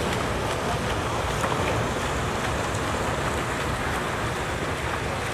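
Steady rushing noise of water splashing and churning as water polo players swim and play in a pool.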